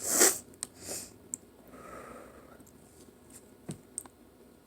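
A person sniffing sharply twice, about a second apart, then a soft breath out and a few small mouth clicks.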